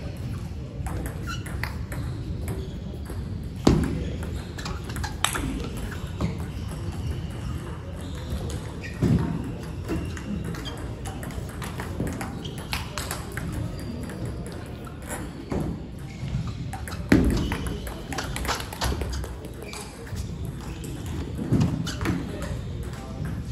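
Table tennis ball clicking off the bats and bouncing on the table in rallies, with fainter clicks of play from neighbouring tables and a few heavier low thuds.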